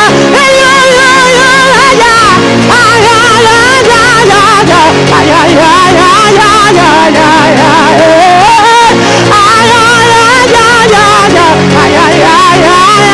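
Live gospel worship music: a lead voice sings a wavering, ornamented melody over steady, sustained accompanying chords.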